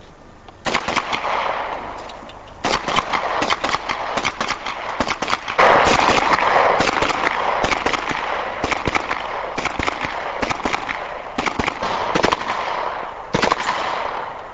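PP-19 Bizon submachine gun firing in bursts of rapid shots with short pauses between them, each shot followed by an echo.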